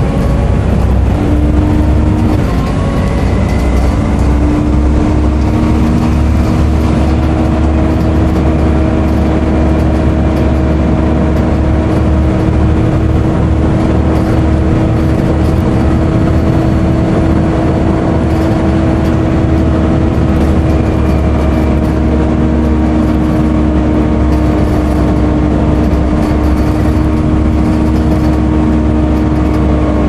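Volvo B7TL double-decker bus cruising, heard from the upper deck: a steady whine from the engine's cooling fan, the vacuum-cleaner-like "hoover" these buses are known for, over the drone of the diesel engine and road noise. The whine steps up slightly in pitch a second or two in, then holds steady.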